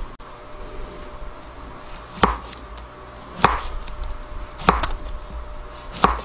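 Knife slicing mushrooms on a wooden cutting board: four sharp knocks of the blade meeting the board, evenly spaced about a second and a quarter apart.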